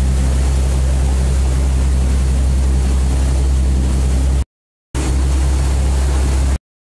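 Ferry's engine droning steadily under the rush of the propeller wake churning the water. The sound cuts out completely for a moment about four and a half seconds in, and again near the end.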